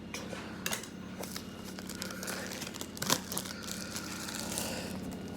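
A product box being opened by hand: packaging crinkling and tearing, with a few sharp clicks and taps.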